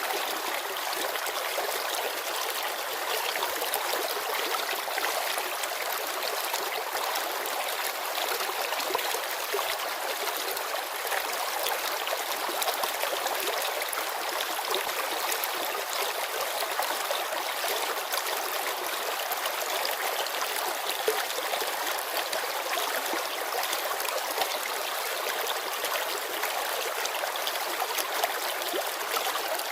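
Clear, shallow mountain river babbling over stones: a steady rushing and splashing, high and bright, without a deep rumble.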